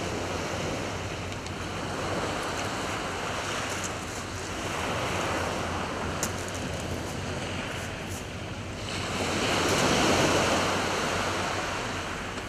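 Small waves breaking and washing up a sand-and-shingle beach, rising and falling in slow surges every few seconds. The biggest surge comes near the end.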